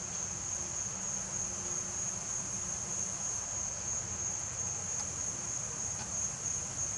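Insects trilling in one steady, high-pitched tone, over a low background hum. Two faint clicks come near the end as the M84 scope's turret screw is tightened.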